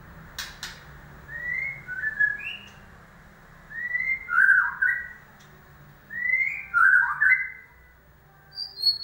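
White-rumped shama (murai batu) singing: three loud phrases of rich whistled notes, each opening with a rising whistle and dropping into lower notes, after two sharp clicks near the start. This is a lure recording played to provoke a silent murai batu into song.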